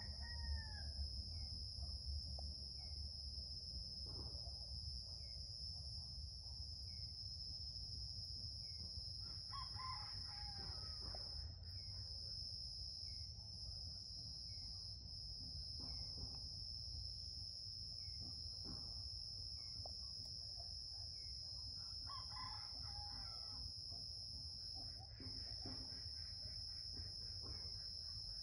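Rooster crowing three times, roughly ten seconds apart, over a steady high-pitched insect drone.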